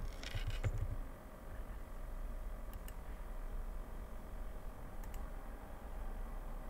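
Computer keyboard keystrokes in a quick run for about the first second, then two single sharp clicks, of a computer mouse, a couple of seconds apart. A steady low hum runs underneath.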